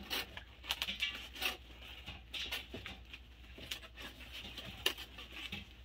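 Cardboard shipping box being cut open along its flap with a small hand tool: irregular scratching and rustling of cardboard and packing tape, with a sharper click about five seconds in.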